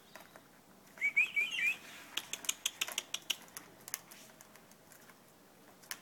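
A small parrot gives a quick run of four or five short, curling chirps, followed by a patter of light splashes and flicks of water as the birds bathe and flap in a shallow tub.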